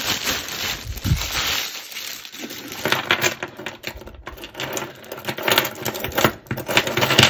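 A clear plastic bag crinkling as it is emptied, then metal bangles and faux pearl beads clinking and rattling against each other as they are handled, in a quick run of small clicks.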